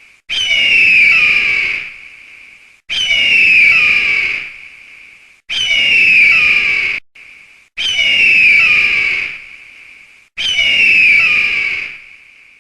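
Eagle screech sound effect: five loud, harsh screams, each sliding down in pitch and lasting about a second and a half, repeated roughly every two and a half seconds.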